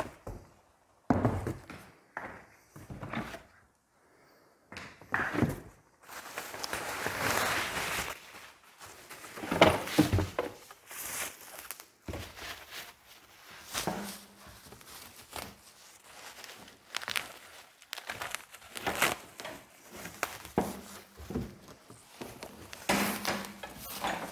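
Unpacking from a cardboard box: cardboard packing rustling and scraping, plastic wrapping crinkling, and a string of knocks and thunks as a wrapped tubular metal handle frame is lifted out, the loudest knock about ten seconds in.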